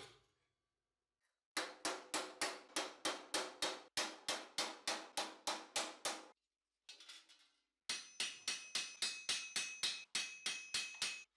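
Hand hammer striking thin steel armour plate in quick, even blows about four a second, in two runs with a short pause between. The second run rings with a clear, steady metallic tone.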